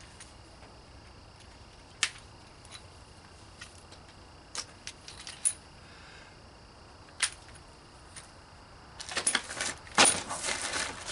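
Cardboard packaging and plastic parts being handled during an unboxing: a few scattered clicks and taps, then, about nine seconds in, a busier run of rattling and crinkling as a box of accessories is opened.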